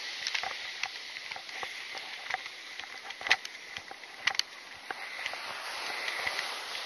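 Small surf washing onto a sand beach with a steady hiss, over which come irregular light clicks and crunches of footsteps walking on sand.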